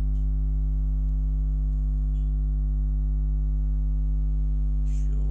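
Steady electrical mains hum on the recording, a low buzzing drone with overtones that does not change, with a couple of faint ticks.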